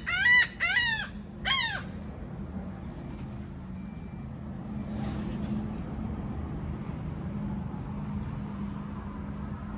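A seagull calling a rapid run of loud, harsh, arching cries that stops about two seconds in, followed by a steady low background hum.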